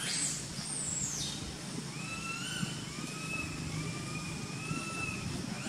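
Steady low rumble of distant road traffic, with thin high tones wavering over it in stretches of about a second, and a high falling call near the start.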